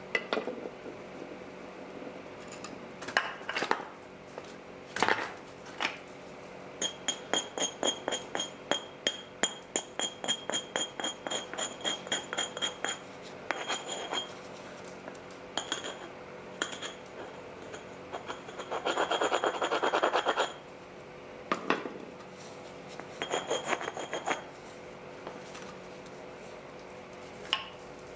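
Flintknapping on a Helgoland flint dagger blank: a series of sharp clicks and clinks of tool on flint, coming quickest in the middle with a brief ringing. About two-thirds of the way through comes a second or so of rapid rasping, like an edge being abraded.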